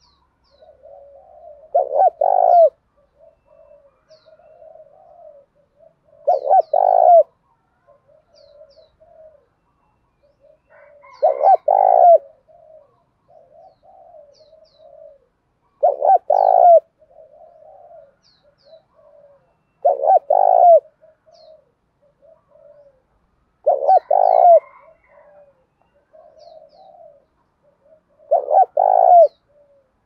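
Male spotted dove giving its territorial challenge coos, the calls used to provoke wild doves. A loud cooing phrase comes about every four to five seconds, with softer, quieter coos in between.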